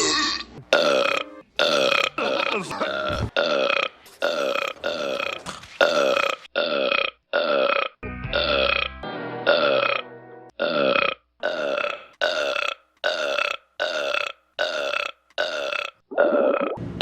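Belches repeated in quick succession, about one and a half a second, each short burst pitched and nearly identical to the last, with a lower rumble about halfway through.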